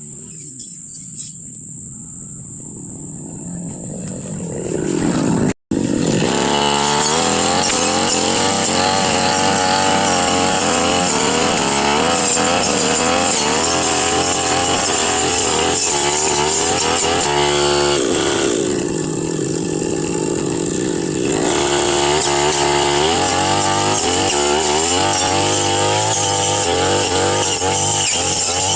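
Brush cutter engine running hard, its pitch rising and falling with the throttle as it cuts through grass and brush. It starts quieter with a rising whine, then runs loud after about five seconds, easing off briefly about two-thirds of the way through.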